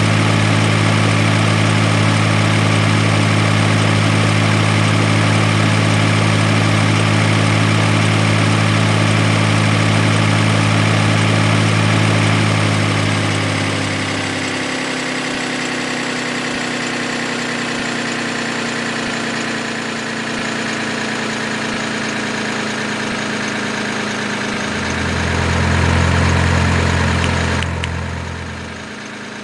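Heavy vehicle engine running steadily at idle, with a deep low hum that drops out about halfway through, returns for a few seconds near the end, then fades.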